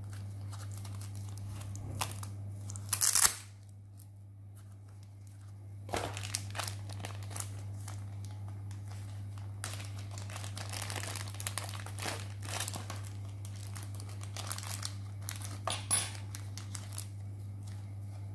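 Packaging crinkling as small flashlight accessories are unpacked by hand. There is a loud sharp rip about three seconds in, then a long run of crinkling and small clicks from about six to seventeen seconds.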